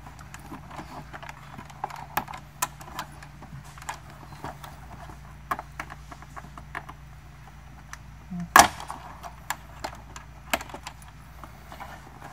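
Small plastic clicks and rattles of wiring connectors and cables being handled and unplugged inside a Tesla Model S rear door, with one louder click about two-thirds of the way through.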